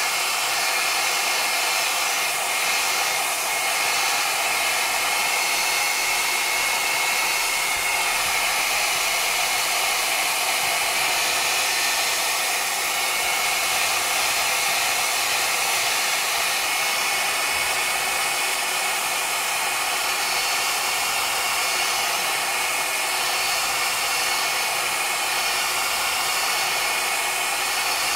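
Handheld hair dryer blowing steadily, a rush of air with a faint high whine, held against a phone's glass back to heat and soften the glue under the back cover.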